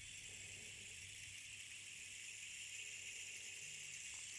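Manglid wood rain stick slowly sounding: its contents trickle down inside in a soft, steady, rain-like hiss.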